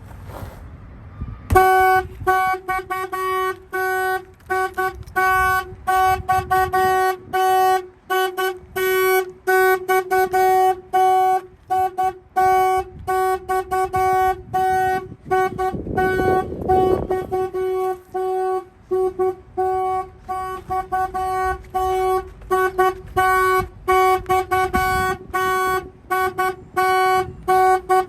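Polaris Slingshot's horn honking in rapid, repeated blasts, set off by the aftermarket alarm system being tripped. The honking starts about a second and a half in.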